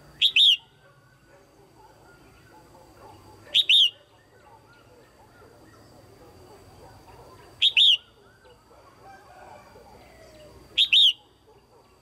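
Female red-whiskered bulbul calling: four loud, short double-note calls, about three to four seconds apart. These calls are used to stir up male bulbuls or to pair birds. Fainter chirping continues between them.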